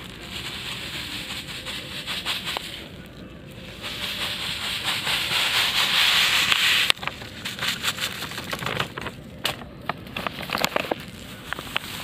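Granular fertilizer pouring from a packet onto a heap of granules on a woven plastic sack: a steady hiss that swells from about four seconds and stops abruptly near seven seconds. Afterwards, scattered crackles of plastic packets being handled and shaken.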